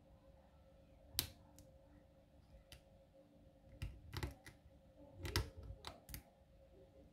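Faint, irregular metallic clicks and taps of a hook pick and tension wrench working in a padlock's keyway, with one sharper click just over a second in and quicker flurries of clicks around four and five seconds in.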